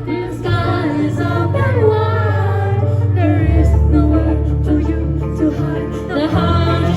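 Live band music with a woman singing over a strong, steady bass line; the bass drops to a lower note about halfway through.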